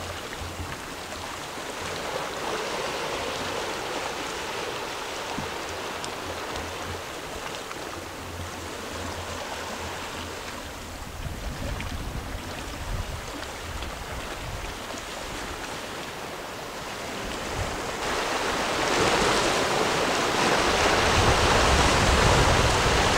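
Sea surf washing against shoreline rocks, a steady rush of water that grows louder and heavier in the last five seconds as bigger waves break.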